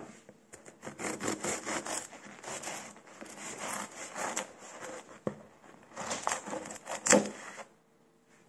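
A knife sawing through a crusty bread roll on a wooden cutting board, in repeated back-and-forth strokes. A louder, sharp knock comes about seven seconds in, and the cutting stops shortly after.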